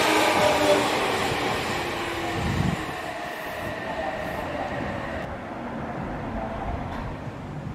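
Odakyu electric commuter train running off, its motor whine and wheel noise sagging slightly in pitch and fading over the first few seconds. A low thud comes about two and a half seconds in, then only a quieter steady hum from a train standing at the platform.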